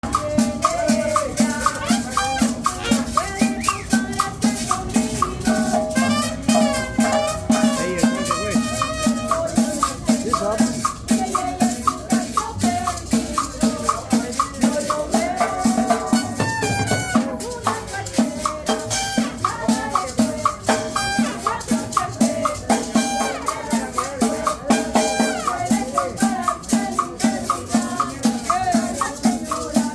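A live cumbia band playing: a melody over a steady beat of about two pulses a second, with shaken rattle percussion and drums.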